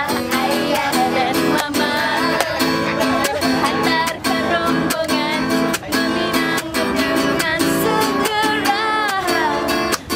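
Music: an acoustic guitar strummed in a steady rhythm, with a singing voice over it.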